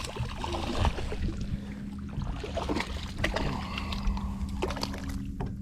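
Scattered light clicks and knocks of a small trout and fishing tackle being handled in a boat, over a steady low hum.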